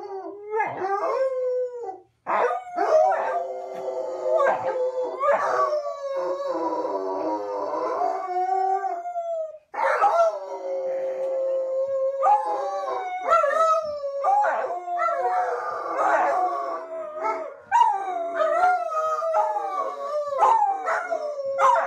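Golden retriever howling: long, wavering howls one after another with short yelps between them, breaking off briefly about two seconds and about ten seconds in.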